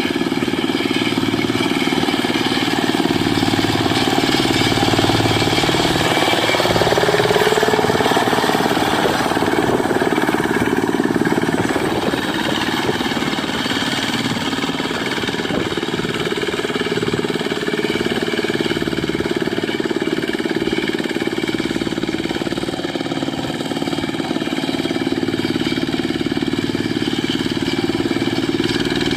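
Single-cylinder Dongfeng diesel engine of a Quick Impala two-wheel hand tractor running steadily while tilling a rice paddy. Its note rises and falls briefly about seven seconds in.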